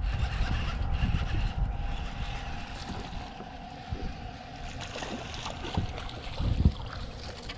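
A fishing boat's motor running with a steady whine, with wind rumbling on the microphone at first and a low thump near the end.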